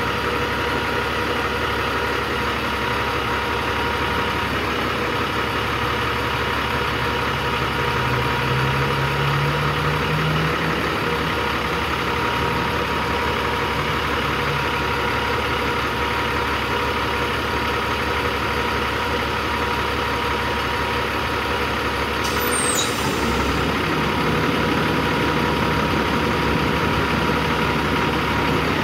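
The 15-litre six-cylinder diesel of a 2007 Peterbilt 357 crane truck idling steadily. A tone rises and falls between about a quarter and a third of the way in, and a brief high chirp sounds about three-quarters of the way through.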